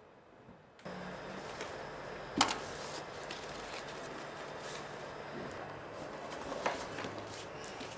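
Papers and a plastic sleeve handled on a desk: rustling with scattered clicks and knocks over a steady room hiss and faint hum. A sharp knock about two and a half seconds in is the loudest sound, with another about two-thirds of the way through.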